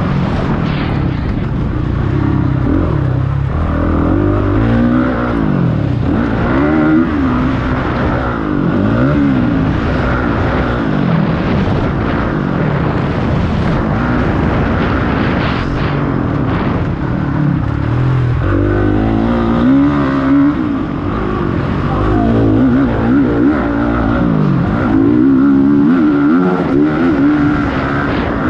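Motocross bikes racing, several engines overlapping, each revving up and dropping back again and again.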